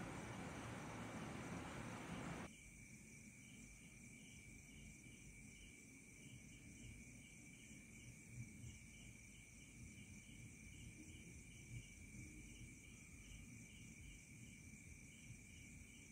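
Near silence: a faint background hiss drops away abruptly about two and a half seconds in, leaving faint room tone with a thin, high, evenly pulsing chirp, like insects.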